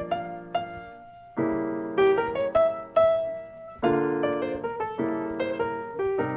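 Background music: a piano playing chords and melody notes, the introduction of a recorded jazz song.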